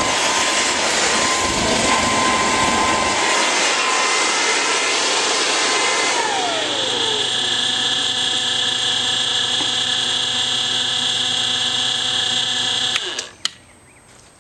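Homebuilt turbocharger turbojet being spun up by a leaf blower during a start attempt: a loud rushing roar with a steady whine. About six seconds in, the whine falls away as the turbo spools down, leaving a steady higher whine that cuts off suddenly near the end, followed by a sharp click.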